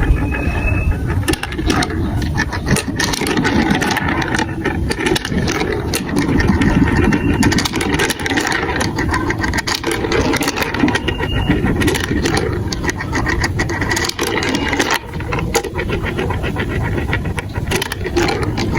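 Many marbles rolling and clattering through a plastic marble run of building blocks: a steady rolling rumble with constant rapid clicks as the balls knock against the track and each other.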